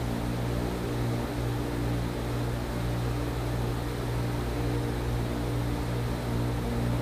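A steady low hum with faint hiss above it, unchanging throughout.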